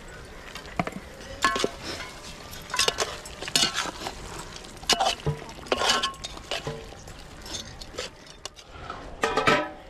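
Metal spoon clinking and scraping against an aluminium cooking pot as chicken pieces are stirred: a run of irregular ringing clinks, the loudest near the end.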